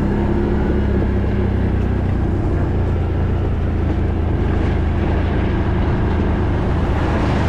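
Quad (ATV) engine running steadily while the machine is under way: an even, unbroken low drone.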